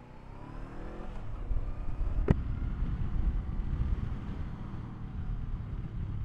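Honda SCL500's parallel-twin engine pulling away, its pitch rising over the first second. Wind rushing over the microphone then joins the engine's low drone, with one sharp click about two seconds in.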